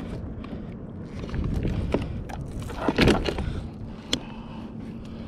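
Scattered knocks and scuffs from handling fishing line, gear and a freshly landed yellowfin tuna on a plastic kayak, over a steady low rumble, with a louder bump about three seconds in.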